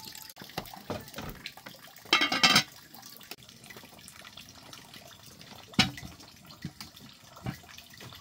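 Water splashing and trickling, with a brief louder gush of water about two seconds in and a few sharp knocks later on.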